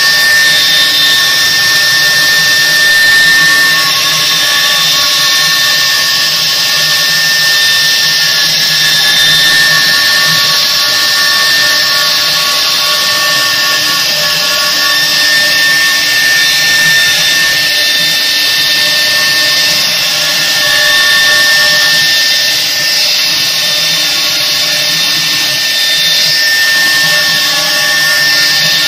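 Two 3 kW water-cooled spindles of a double-head CNC wood router running at speed while routing carved patterns into MDF panels. The sound is a steady whine of several held tones over a hiss of cutting.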